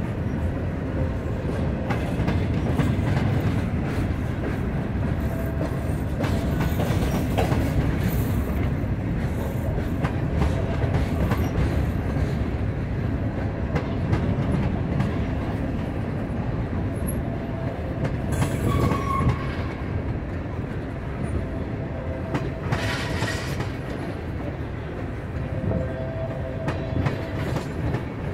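Freight train cars, covered hoppers and tank cars, rolling steadily past with a low rumble and the clickety-clack of wheels over the rail joints. A faint wheel squeal comes and goes a few times.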